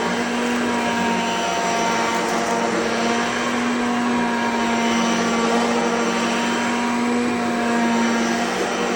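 Hoover Concept Two Electronic vacuum cleaner running steadily on carpet: a constant motor hum with a whine over an airy rush.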